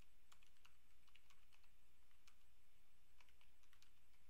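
Faint typing on a computer keyboard: quick, irregular keystrokes in short runs, over a low steady hum.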